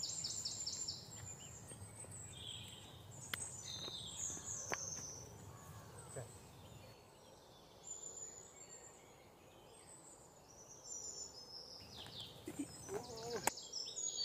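Open-air ambience with birds chirping and trilling on and off, a low rumble of wind in the first half, and a few sharp knocks.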